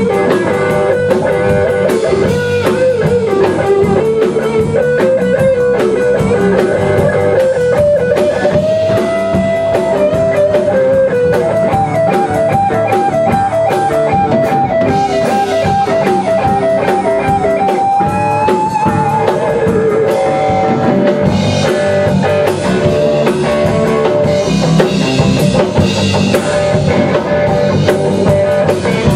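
Rock band playing an instrumental passage: an electric guitar lead line with pitch bends and a fast trill between two notes about midway, over bass guitar and drum kit.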